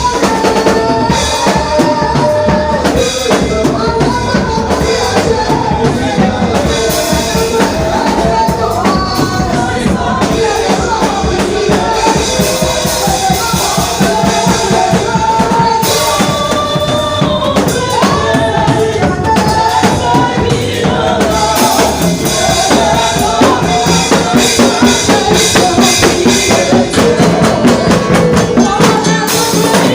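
Gospel band music with a drum kit keeping a steady beat under a wavering melody line.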